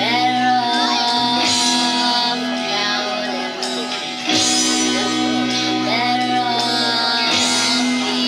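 Live band playing a pop song: female lead vocal over 12-string acoustic guitar, electric lead guitar, bass guitar and drums.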